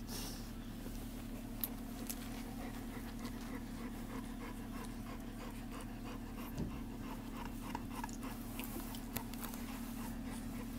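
Newborn bullmastiff puppies nursing at their mother: quick, fairly regular small suckling clicks and squeaks, over a steady low hum.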